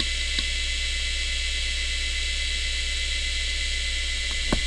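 Quantum ProDrive LPS 105S hard drive, cover off, with its spindle motor whirring and whining steadily at full speed and its heads now idle. A single sharp click near the end marks the drive being switched off, just before it starts to spin down.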